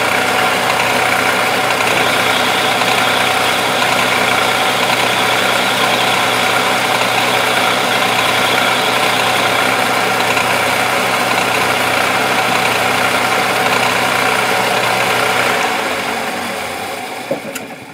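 Metal lathe running steadily, its motor and gearing whirring with a fixed hum, while taking a light finishing cut on a hardened steel bolt head turned off-centre. About 15 seconds in it is switched off and spins down, fading out near the end.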